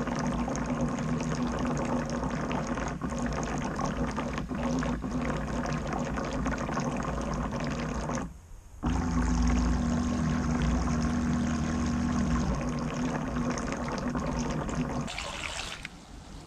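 Water gurgling and sloshing against a camera riding at the waterline on a toy radio-controlled boat, over the steady hum of the boat's small battery-powered motor. The sound drops out briefly about halfway through and turns quieter for the last second or so.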